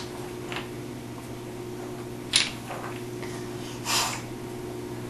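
Steady low room hum with a few small handling sounds from wooden toy blocks on a tile floor: one sharp light knock about two and a half seconds in and a short soft rush of noise near four seconds.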